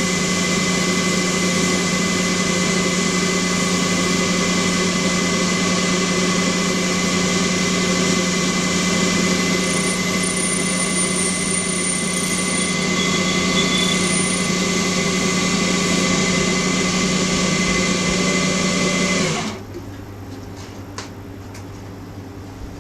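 Small CNC lathe spindle running steadily, a whine with a hiss, while 1600-grit wet-or-dry abrasive paper is held against the spinning ash workpiece. The running sound cuts off suddenly near the end, leaving a low hum.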